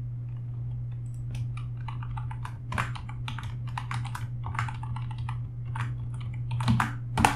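Typing on a computer keyboard: a run of quick, irregular keystrokes starting about a second in, over a steady low hum.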